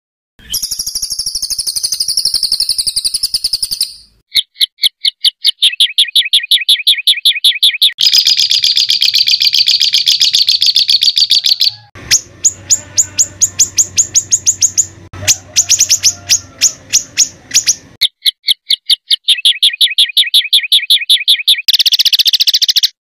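Songbird masteran song of harsh, fast-repeated 'tembakan' notes: rapid trills and strings of sharp high notes, several a second. The phrases change abruptly every few seconds, each a different kind of rapid-fire call.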